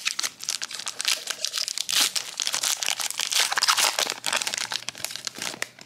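Foil wrapper of a Pokémon trading-card booster pack being torn open and crinkled by hand, a continuous run of sharp crackles and rustles.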